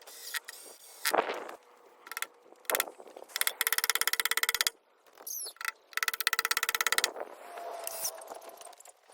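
Two bursts of an impact driver's rapid, even rattle driving screws, about a second each, with knocks and clatter of handling between.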